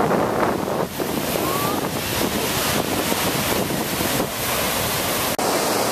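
Ocean surf breaking and washing in the shallows, with wind buffeting the microphone. The sound cuts out for an instant about five seconds in.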